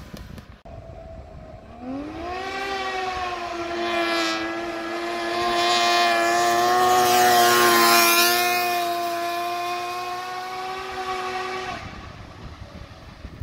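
Homemade cross-kart's 600 snowmobile engine under hard acceleration: about two seconds in its note climbs, then holds at a steady high pitch as the kart passes, loudest near the middle and fading near the end. The engine is slow to build RPM.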